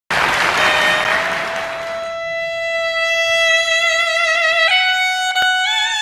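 Suona, the Chinese double-reed horn, sounding one long bright note that wavers slightly, then stepping up to a higher note near the end. Over the first two seconds the note rises out of a loud wash of applause that then stops.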